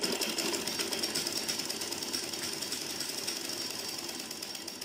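Sewing machine running at a steady pace, its needle stitching rapidly through two layers of fabric to sew a seam.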